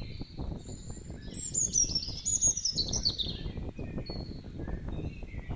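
Birds singing: a quick run of high notes stepping downward about a second and a half in, with other short chirps around it, over a constant low rumbling noise.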